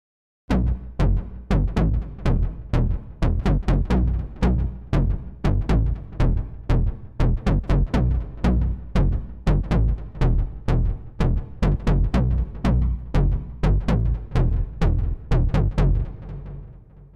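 Hard-sync bass tone from a DIY analog synthesizer, oscillator 1 hard-synced with a sine an octave below added from oscillator 3. It plays as a fast, even run of short notes, about three a second, starting about half a second in and fading away near the end.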